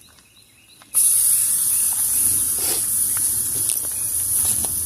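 Pre-seasoned pork belly burnt ends sizzling in a buttered pot over a fire, a steady high sizzle that comes in suddenly about a second in.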